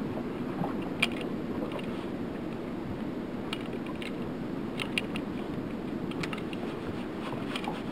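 Steady wind and water noise around a small fishing boat drifting on the open sea, with scattered light clicks and knocks now and then.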